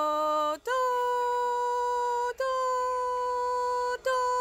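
A voice singing "do" as steady held notes: a lower note that breaks off about half a second in, then a higher note held for about a second and a half at a time, repeated with short breaks.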